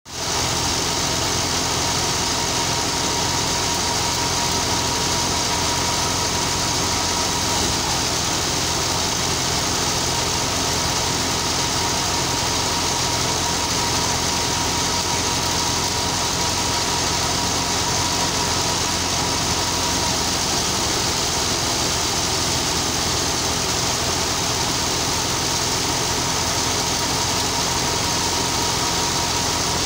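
Ghazi diesel tractor engine running steadily under load, driving a belt-driven threshing machine through its pulley, with the thresher's drum adding a continuous rushing din and a thin steady whine as crop stalks are fed in.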